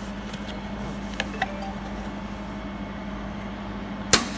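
Steady hum from the running laser welding machine, with two light clicks about a second in and one sharp snap near the end: a laser pulse firing onto focus paper to check the focus.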